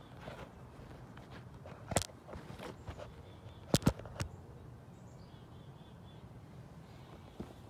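Handling noise from the camera being moved and set down on pavement: a sharp knock about two seconds in and a quick cluster of knocks a little later, over quiet outdoor background with a few faint bird chirps.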